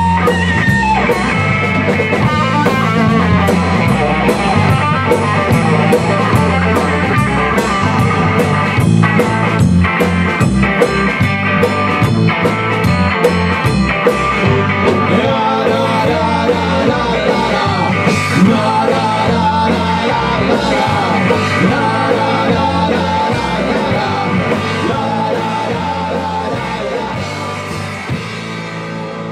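Live rock band playing: distorted electric guitar, bass guitar and drum kit, with sharp drum and cymbal hits, getting quieter near the end.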